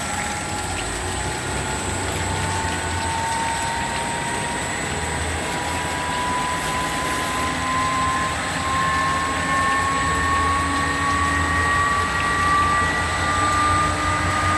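Milnor industrial washer-extractor on a variable frequency drive spinning up in its extract cycle: a motor whine rises slowly and steadily in pitch as the drum gains speed, over a steady machine hum and a constant high whistle.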